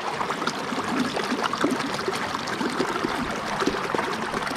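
Small creek babbling and gurgling over rocks, with many quick splashy bubbles at an even level.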